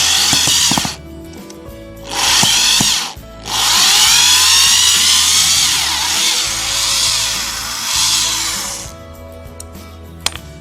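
Corded power screwdriver-drill running in three bursts: a short one at the start, another about two seconds in, then a long run of about five seconds whose motor pitch slides down and back up as the speed changes.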